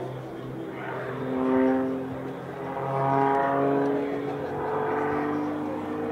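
Extra 300 aerobatic monoplane's piston engine and propeller working through aerobatic manoeuvres, the engine note shifting in pitch and swelling louder about one and a half and three seconds in.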